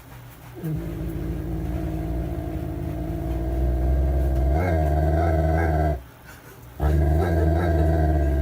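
A dog growls in two long, low, drawn-out stretches. The first runs about five seconds; after a short pause a second one follows near the end.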